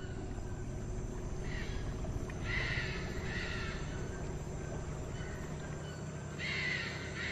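Wild bird giving short calls, repeated in two groups: a few about two to three seconds in and again near the end, over a steady low background.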